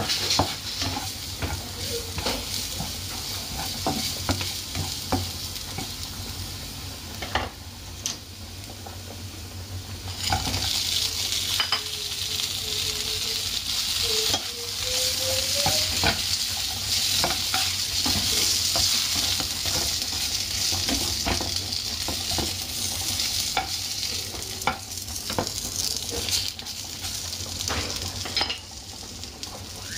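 Minced garlic sizzling in hot oil in a frying pan, stirred with a spatula that scrapes and knocks against the pan. About ten seconds in, the sizzling grows louder as chicken wings go into the pan with the garlic.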